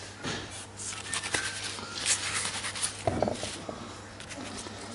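Crumpled, water-damaged trading cards being handled, crinkling and crackling with quick irregular rustles, and a dull thump about three seconds in.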